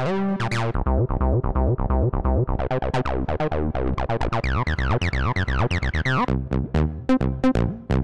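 Image-Line Transistor Bass, a 303-style synth bass, playing its built-in sequenced patterns: a fast run of short bass notes, each with a downward filter sweep. It switches to a new preset pattern about every two seconds.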